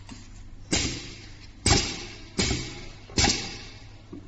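Direct-drive double-needle sewing machine giving four short, sharp mechanical bursts, each fading within about half a second, over a faint steady low hum.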